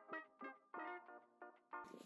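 Soft background music: a light run of short, quickly repeated pitched notes.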